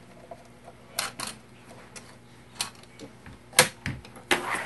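Small metal clicks and clinks of a sewing machine's presser foot and its screw being worked loose and taken off the presser bar: a handful of separate sharp ticks, the loudest near the end.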